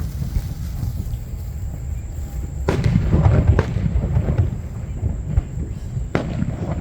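Aerial fireworks bursting: sharp reports about three seconds in and again near the end, each followed by crackling and a low rumbling boom.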